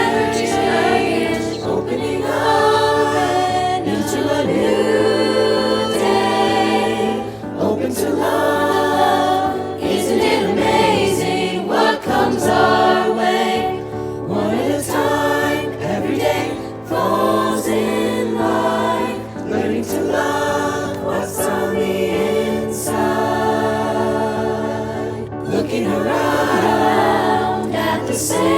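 High school chorus singing in harmony, a virtual choir layered from the students' individual recordings.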